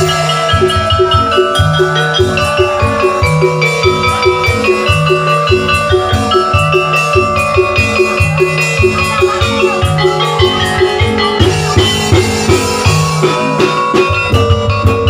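Live oklik (tongklek) ensemble playing a koplo-style tune: tuned bamboo and mallet percussion carry the melody over a steady drum beat.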